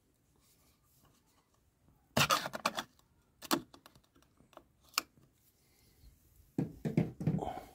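The foil seal in the neck of a plastic antifreeze jug is pierced and torn open with a pointed tool: a burst of crackling and scratching about two seconds in, a few single clicks, and another crackling burst near the end.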